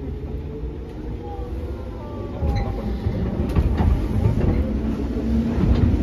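Cabin running sound of a JR 205 series 3100 electric train with field-added excitation control: steady low rumble of wheels on rail and traction-motor hum. It steps up in loudness a little over two seconds in.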